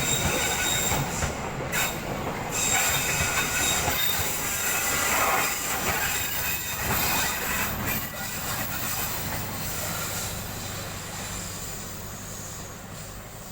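A train passing close on the rails: a steady rush of wheel noise with high squealing tones from the wheels and clicks over the rail joints, fading away over the last few seconds.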